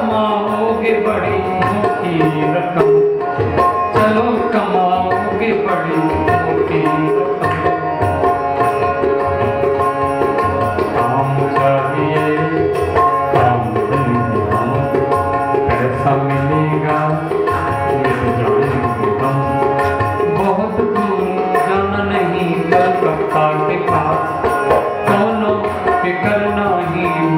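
Instrumental interlude of a bhajan: a harmonium plays a sustained melody over steady tabla drumming.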